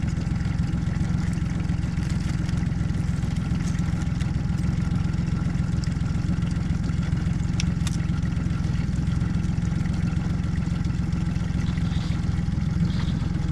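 Boat's outboard motor running steadily at low speed, a constant low hum, with a brief click about eight seconds in.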